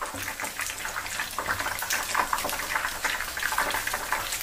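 Batter-coated cabbage rolls deep-frying in hot oil in a wok: a steady bubbling sizzle with many small crackles.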